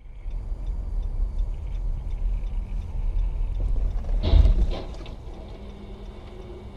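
Low, steady road and engine rumble of a car heard from inside the cabin by a dashcam. About four seconds in there is a single loud, sudden thump, after which the rumble is quieter.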